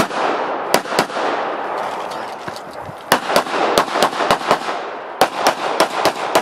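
Pistol shots in rapid competition fire: two quick shots about a second in, a pause of about two seconds, then two fast strings of six or seven shots each, about four shots a second, with a short break between them.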